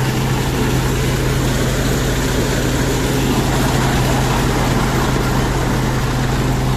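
Tractor-driven groundnut thresher running steadily while peanut plants are fed into it, separating the pods. The tractor engine's constant low hum sits under a dense mechanical noise.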